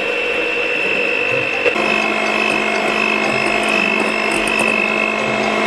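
Electric hand mixer running steadily, its beaters whipping liquid whipping cream with sugar in a glass bowl. The motor's whine shifts to a different tone about two seconds in.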